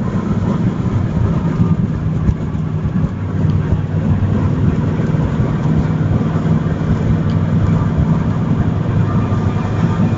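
Steady engine and road drone inside a car's cabin at highway speed, about 120 to 140 km/h, with a constant low hum.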